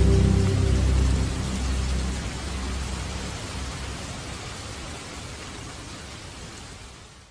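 Steady rain hiss with a low rumble in the first few seconds; the whole sound fades away gradually and cuts off at the end.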